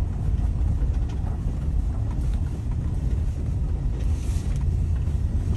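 Steady low rumble of a car driving, road and engine noise.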